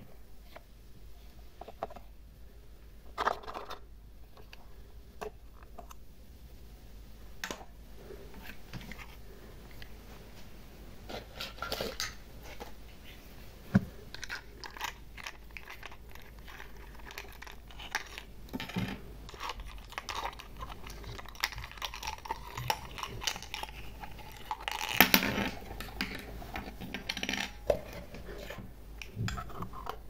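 Small plastic toy kitchen pieces clicking and tapping against a glass dish as they are handled, in scattered light knocks, with a denser, louder clatter about 25 seconds in.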